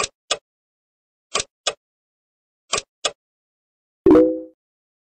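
Video-game-style menu sound effects: a double-click cursor blip three times, about 1.4 s apart, as the menu highlight steps down, then about four seconds in a louder selection sound with a short chord of low tones that dies away within half a second.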